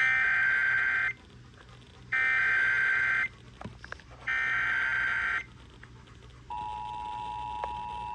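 Emergency Alert System broadcast signal: three SAME header data bursts, each a harsh warbling tone about a second long, with about a second between them. About six and a half seconds in, the steady two-tone EAS attention signal begins.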